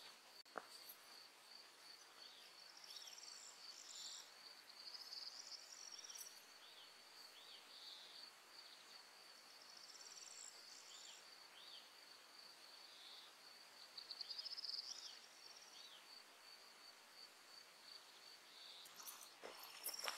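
Faint meadow ambience: a cricket chirping steadily in a high, even pulse of about three chirps a second. Birds call over it with short downward-sliding notes and a few brief bursts of higher song.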